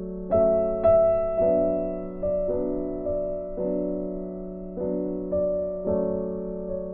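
Background music: a piano playing slow sustained chords, a new chord or note struck every half second to a second and fading between strikes.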